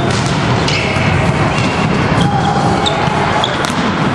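Indoor volleyball rally: the ball struck by hands and arms, a few sharp hits, with sneakers squeaking in short chirps on the hall floor over a steady hall din.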